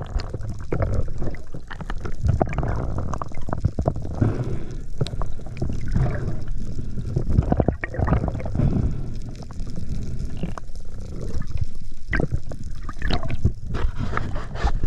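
Water sloshing and gurgling around the camera, with irregular clicks and knocks throughout.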